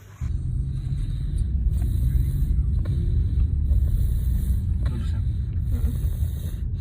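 A steady low rumble that sets in abruptly just after the start and keeps going, with a few faint clicks over it.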